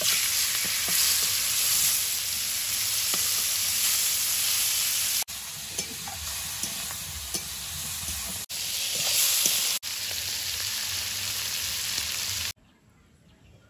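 Raw banana and potato pieces sizzling as they fry in hot oil in a kadai, stirred now and then with a spatula. The sizzle is steady, dips briefly a few times and cuts off suddenly near the end.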